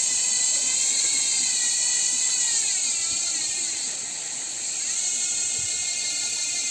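Ragusa XM700 six-pawl bicycle freehub buzzing as the wheel spins freely, the pawl clicks running together into a high whine. Its pitch dips and recovers twice in the middle.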